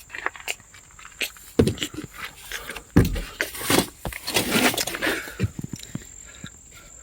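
Irregular knocks and clunks, the two loudest about a second and a half apart, mixed with scraping and rustling; no engine is running.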